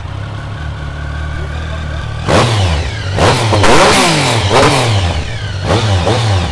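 Triumph Speed Triple 1050's inline three-cylinder engine idling steadily just after starting, then revved in a string of quick throttle blips from about two seconds in.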